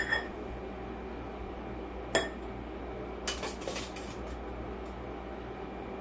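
Metal cutlery clinking against a plate in separate sharp clinks: a loud one about two seconds in, a quick run of clinks around three seconds, then fainter taps. A steady low hum runs underneath.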